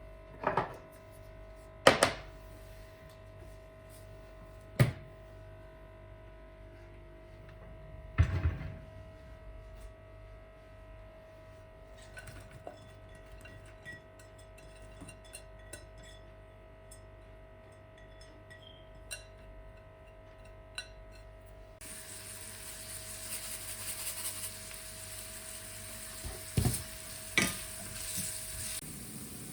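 Kitchen work sounds: sharp knocks and clatter of pots, pans and utensils, spaced several seconds apart, over the steady hum of a kitchen appliance. About three quarters of the way through, a steady hiss sets in, and two more knocks come near the end.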